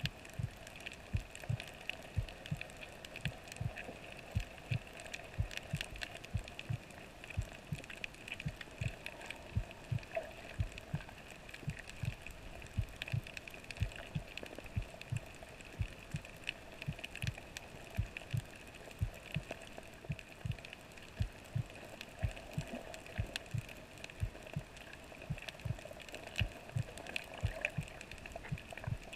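Muffled underwater sound picked up by a camera held under water: irregular low thumps a few times a second over a steady hum, with faint scattered clicks.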